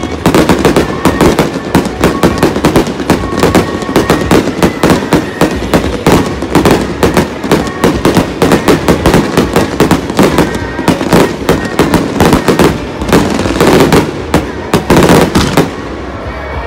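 Fireworks crackling: a dense, rapid run of sharp pops from bursting crackle stars, which dies down just before the end.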